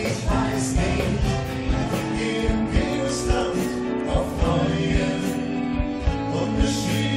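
Live band playing with a steady drum beat, with a man and a woman singing together over the band.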